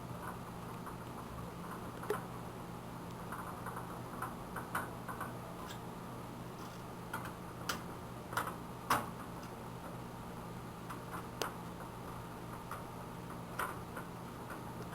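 Irregular light clicks and taps of a screwdriver, screws and metal drive parts as drives are unscrewed and taken out of a desktop computer case, over a steady low hum.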